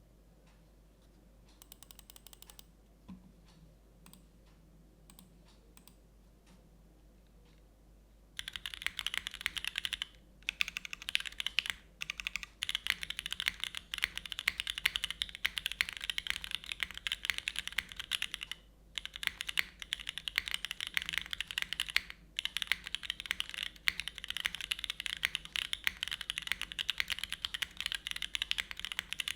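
Typing on a Kibou Suisei65 R3 mechanical keyboard with Cherry MX2A Black linear switches with OPBlack tops, GMK keycaps and a polypropylene plate, top-mounted. A few faint clicks for about the first eight seconds, then fast, continuous typing with a few brief pauses.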